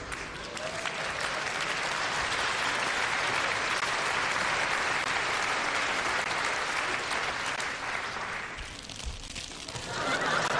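Studio audience applauding steadily, dying down about nine seconds in, then a short fresh burst of noise near the end.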